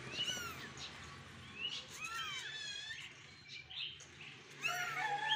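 Young kittens mewing: short, high, arching cries, one at the start, two overlapping about two seconds in, and a few more near the end.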